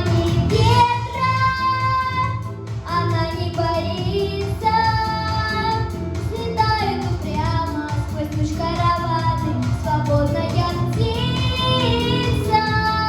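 A young girl's solo voice singing a song over an instrumental backing track, holding long notes between shorter phrases.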